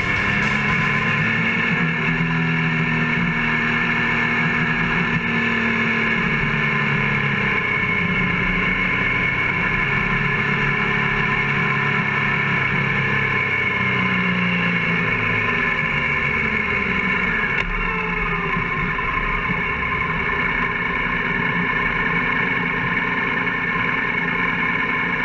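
Motorcycle engine running while riding, heard from a camera mounted on the bike, with wind and road noise. The engine note rises and falls as the throttle is worked.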